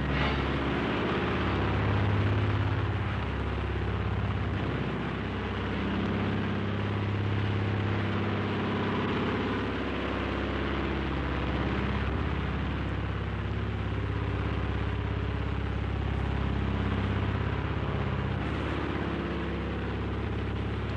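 Propeller aircraft engines droning steadily, a low continuous hum with a slightly wavering pitch.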